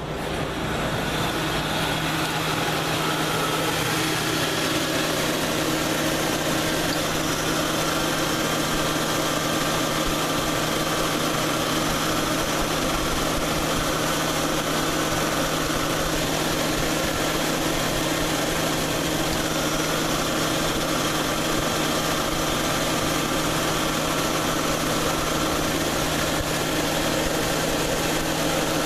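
Ford Crown Victoria's 4.6-litre V8 idling steadily with the A/C on, its accessory belt and pulleys turning, over a steady hiss.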